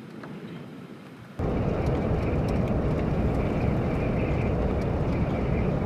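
Faint outdoor ambience with a few light ticks. About a second and a half in, it gives way suddenly to the loud, steady, gushing roar of a tornado's turbulent wind.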